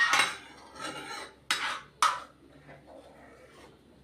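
A steel ladle scraping and stirring cream against the inside of an iron kadhai as the cream heats for ghee. There are a few loud scraping strokes in the first two seconds, the sharpest right at the start and again about two seconds in, then it goes quieter.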